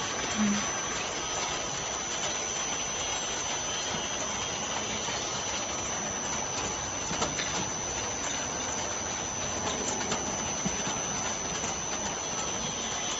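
Cauliflower processing line running: a stainless-steel mesh-belt conveyor driven by a worm-gear motor, giving a steady mechanical noise with a thin high whine and a few light clicks.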